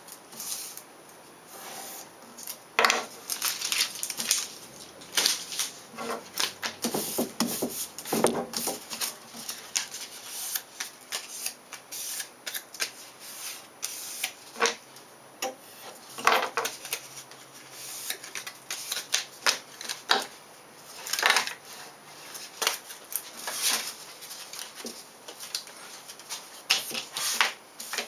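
Contact paper and its backing sheet crackling and rustling in irregular bursts as they are cut with a hobby knife, peeled and handled.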